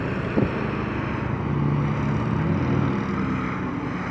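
Motorcycle engines running at low speed, the engine note shifting up and down. A short sharp sound is heard about half a second in.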